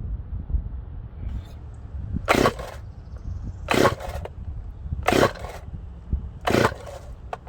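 Recoil starter cord of a chainsaw being yanked four times, about one pull every second and a half. The engine never catches or fires, even though the saw has just been reassembled after a repair.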